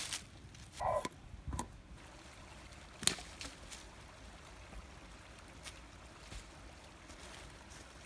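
A few sharp cracks and short rustles of dry sticks and leaves, the loudest crack about three seconds in, over a faint steady hiss.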